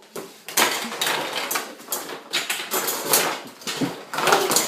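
Pots and pans being banged with metal utensils: irregular clanging and clattering strikes.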